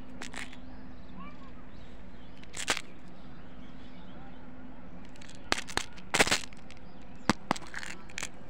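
Hands handling a hollow plastic toy egg: a few sharp plastic clicks and knocks, the loudest about six seconds in as the egg's two halves snap apart, over a steady low hum.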